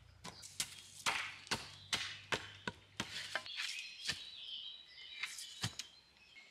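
Sharp chopping strikes of a hand tool into wood, about two a second, thinning out after a few seconds, with birds singing in the background.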